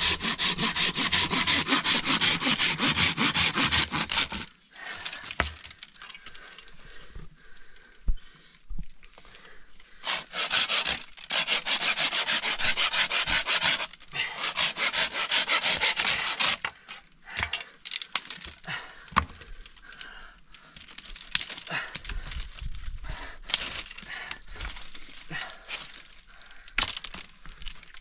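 Small hand saw cutting through a wooden branch in quick back-and-forth strokes, in two main bouts: one over the first four seconds and another from about ten to sixteen seconds in. Between and after them come scattered knocks and rustling as the cut sticks are handled.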